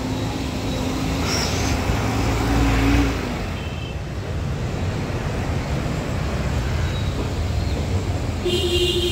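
City street traffic: motorbikes and cars going by in a steady wash of road noise, one passing louder about two to three seconds in, with a brief pitched tone near the end.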